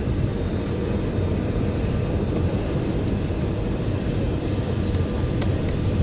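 Cabin noise of an Airbus A320 on final approach: the steady low rumble of its engines and the air rushing past the fuselage, heard from a seat over the wing. There is a faint steady tone, and a single sharp click about five seconds in.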